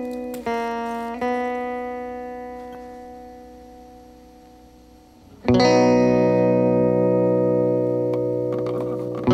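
Background music on guitar: a few ringing notes that slowly die away, then a loud held chord about five and a half seconds in, and a new chord struck near the end.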